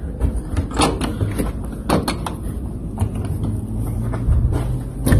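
Sliding balcony door being handled, with a few sharp knocks and clatters over a steady low rumble.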